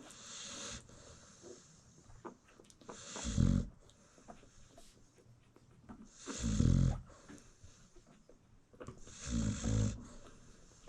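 American Bully dog snoring in her sleep: three deep snores about three seconds apart, each with a breathy hiss, and a softer breath at the start.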